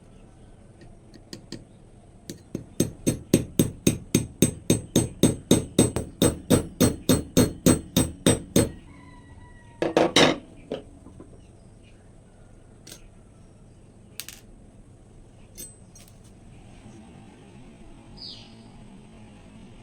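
Metal being struck with a hammer in a rapid, even series of blows, about three to four a second for some six seconds. This is followed by a short, louder noisy burst and a few scattered knocks.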